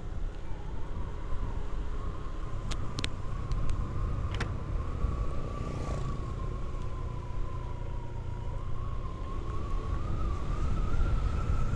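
Automatic scooter being ridden at steady speed: engine running under a low rumble of wind on the microphone, with a thin whine that drifts gently up and down in pitch as the speed changes. A few sharp clicks about three to four and a half seconds in.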